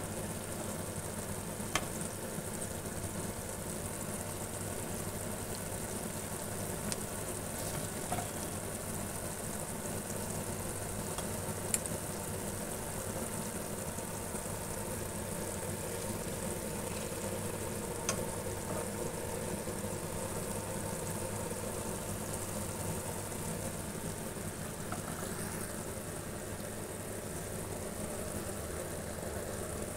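Meatballs and sliced onions sizzling steadily as they fry in oil in a pan, with a few sharp clicks along the way.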